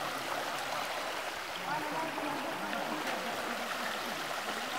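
Shallow spring-fed stream running steadily over stones, with faint distant voices talking.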